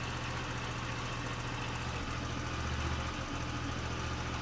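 Small scooter engine idling steadily, running again after repair.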